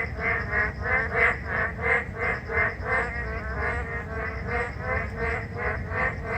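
A chorus of boreal digging frogs (맹꽁이), a Korean narrow-mouthed frog, calling. Short nasal calls repeat about three times a second and overlap one another.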